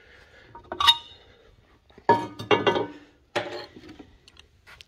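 Metal parts clinking and clanking as a homemade outboard driveshaft extension and lower-unit parts are handled on a steel workbench. There is a ringing clink about a second in, a cluster of louder clanks about two seconds in, another soon after, then a few light ticks.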